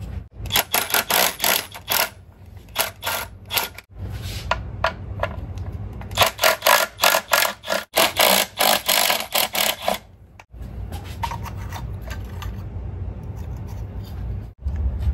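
Plastic power steering reservoir being worked out of its mount in the engine bay of a 2006 Dodge Grand Caravan: a run of quick rubbing, scraping and clicking for about ten seconds, then a steadier low sound for the last few seconds.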